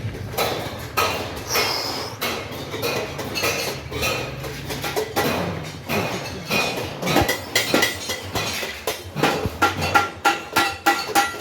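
Repeated metallic clinks and knocks, irregular at first and coming quicker and sharper in the last few seconds, some ringing briefly.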